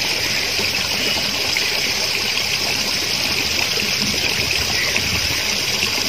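Water running steadily through a stepped stone pond overflow weir: an even, unbroken rush.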